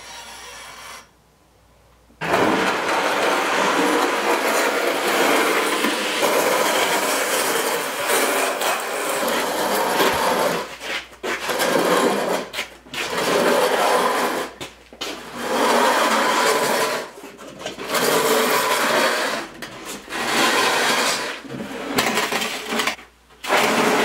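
A hand truck drags a concrete countertop slab on a plywood board across a concrete floor, making a loud rolling and scraping noise. It starts about two seconds in and runs steadily for several seconds, then breaks into a string of short pulls, each a second or two long.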